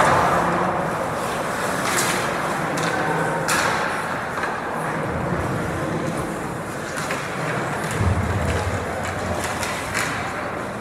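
Live ice hockey play: skates scraping and carving on the ice, with a few sharp clacks of sticks and puck over steady rink noise, and faint voices.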